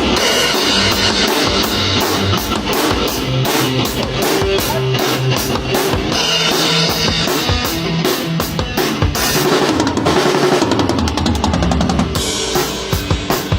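Music with a drum kit playing a steady beat over a bass line: bass drum, snare and cymbals. Near the end the beat thins to separate drum hits.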